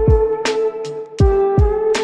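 Background music: an instrumental track with a kick drum and sharp percussive hits on a steady beat, over a held note.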